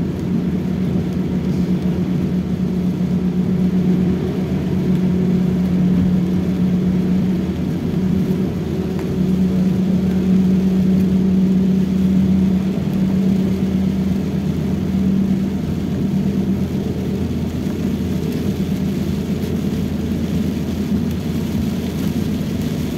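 Toyota Rush heard from inside the cabin while driving in heavy rain: a steady engine drone with a humming tone that swells and fades, over continuous tyre and road noise from the wet road.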